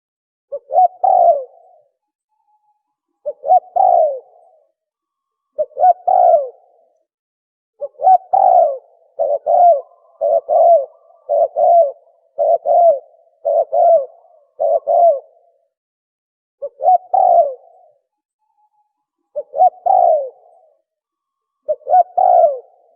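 Spotted dove cooing in repeated short phrases, a couple of seconds apart at first. Midway it quickens into a fast run of about eight phrases, then spaces out again.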